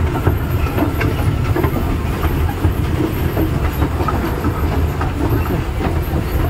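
Amusement-park toy train running on its track: a steady low noise of the moving train with scattered clicks from the wheels.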